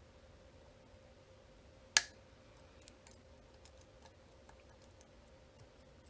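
Lock-picking tools working the pins of a 9-pin dimple cam lock: one sharp, loud click about two seconds in, then scattered faint ticks and clicks from the pick on the pins.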